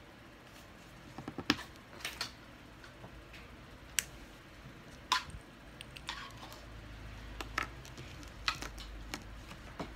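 Small plastic clicks and taps as LEGO minifigure parts are pressed together by hand and set down on a tabletop, coming irregularly, about a second or two apart.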